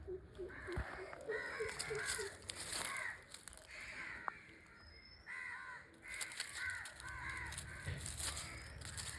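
Crows cawing, several harsh caws in quick series repeated again and again, with a run of short, lower repeated calls in the first second.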